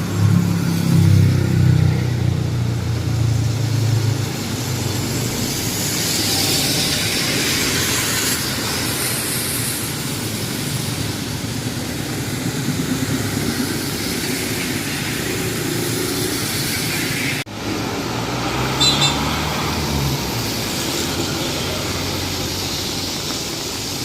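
Street traffic: a motor vehicle passes in the first few seconds and another at about eighteen seconds, over a steady hiss of traffic and wet road. The sound cuts out for an instant at about seventeen seconds.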